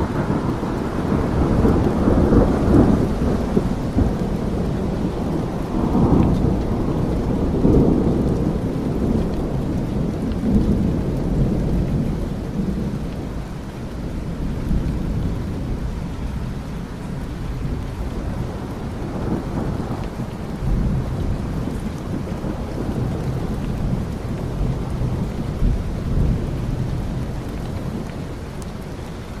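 Steady rain with thunder rolling in deep, drawn-out rumbles, heaviest in the first ten seconds or so and again around twenty seconds in.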